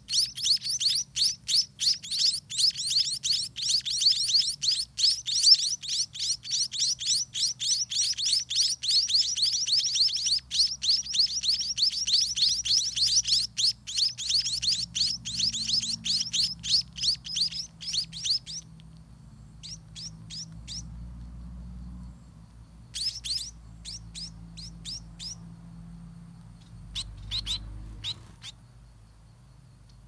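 Spotted munia nestlings begging for food with rapid, high-pitched chirps, about four or five a second. After about 18 seconds the steady calling stops, and only a few short runs of chirps follow.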